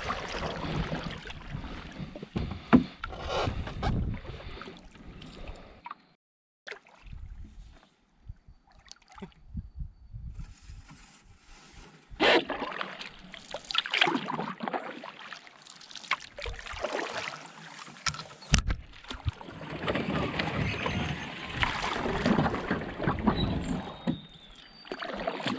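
Canoe being paddled down a creek: bouts of paddle strokes and splashing water, with a few sharp knocks, between short quiet pauses.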